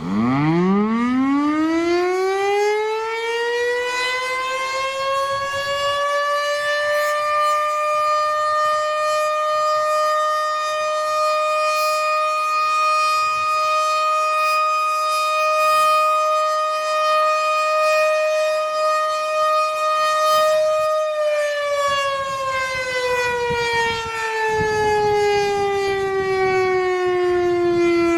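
Federal Signal STH-10 electromechanical outdoor warning siren sounding for its weekly test. It starts up and winds up to a steady tone within about four seconds, holds it, then about twenty-one seconds in begins winding down, its pitch falling slowly.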